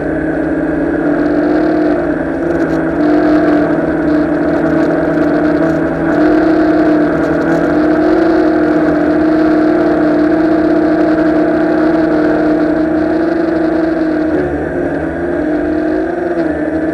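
Tarot Ironman 650 multirotor drone's electric motors and propellers buzzing steadily in flight, heard close from the camera on board; the pitch steps slightly up and down as the throttle changes, dipping briefly near the end.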